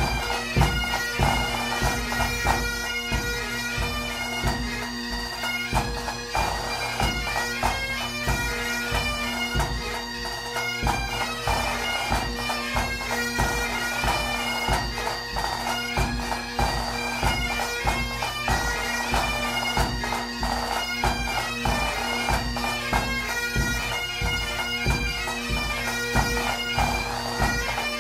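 Bagpipes playing a melody over a steady drone, with a regular drumbeat underneath.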